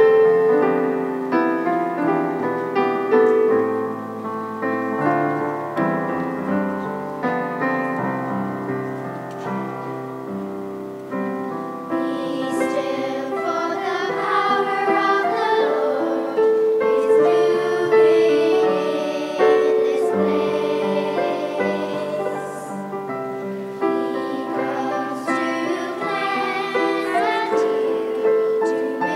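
Church choir singing a hymn with keyboard accompaniment. The keyboard carries the music alone at first, and the voices come in about twelve seconds in.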